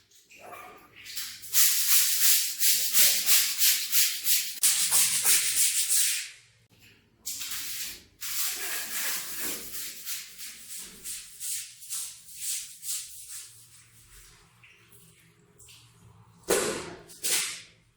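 Stiff brush scrubbing a rug in quick back-and-forth strokes, about four a second, then lighter strokes, and two heavy strokes near the end.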